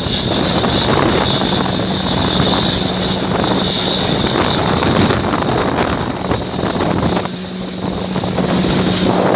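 Boeing 777-200ER's twin turbofan engines running at low power as the airliner rolls slowly along the runway after landing: a steady drone with a high hiss, dipping briefly about seven seconds in.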